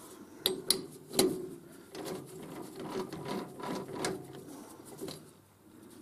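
Metal handling on a lathe's 3-jaw chuck and D1-4 camlock spindle nose: three sharp metal clicks and knocks in the first second and a half, then a few seconds of irregular rattling and scraping as the chuck is worked loose.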